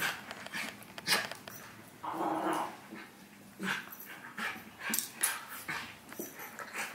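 A Havanese puppy and a miniature schnauzer play-fighting on a rug: short scuffles and dog sounds, the longest of them about two seconds in.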